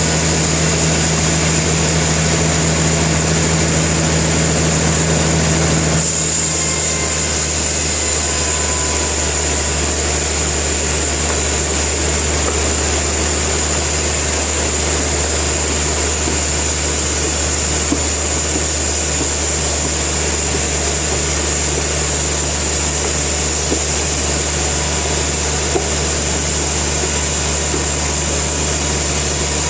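Sawmill machinery running: a steady, loud mechanical drone with a constant low hum and a high whine. The drone shifts abruptly about six seconds in, then carries on.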